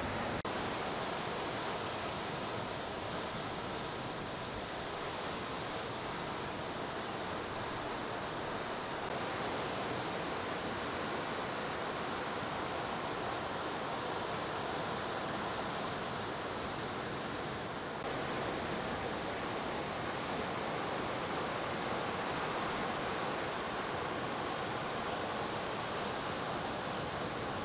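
Ocean surf breaking and washing up the beach: a steady, even rush of water noise with no single wave standing out, shifting slightly about 18 seconds in.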